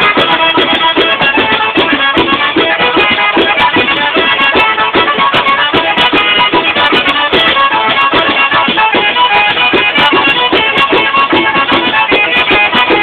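A tarantella played on an organetto, a small diatonic button accordion, carrying the melody over a large tamburello frame drum with jingles that beats a steady rhythm.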